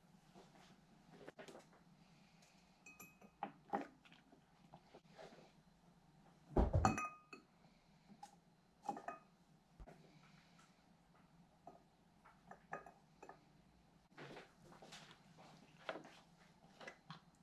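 Wooden tongs placing pineapple chunks into a drinking glass: scattered light clinks and knocks against the glass. The loudest is a heavier clunk with a brief ring about seven seconds in.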